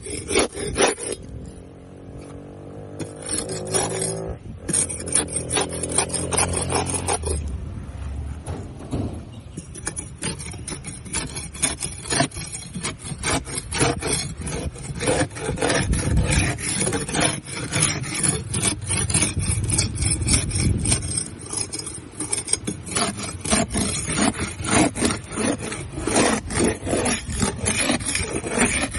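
Barnacles being scraped off a boat hull in rapid, repeated rasping strokes. A low droning hum sits under the scraping for the first several seconds.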